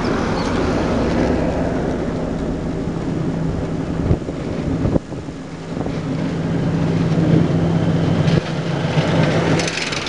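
Car driving over a snow-covered street, heard from inside: a steady engine and road hum, with two short knocks about four and five seconds in.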